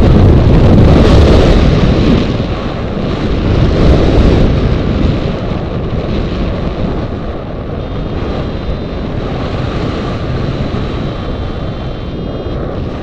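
Airflow rushing over the microphone of a hang glider in flight, with louder gusts in the first few seconds before settling to a steadier rush.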